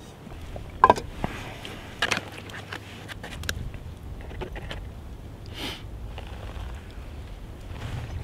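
Steel camp cup set down on a wooden stool with a ringing clank about a second in, and another sharp knock a second later. Then a spoon scrapes and rustles inside a foil freeze-dried meal pouch, with light clicks and crinkling.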